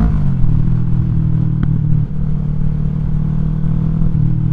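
Kawasaki Vulcan 650 S parallel-twin engine with an aftermarket exhaust, heard while riding. The engine note drops in pitch over the first second as the throttle is rolled off, then holds a steady, lower cruising note.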